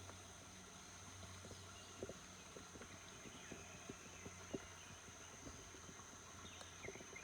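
Faint footsteps on a trail: soft irregular steps, about one or two a second, over a low steady hum and a faint steady high whine.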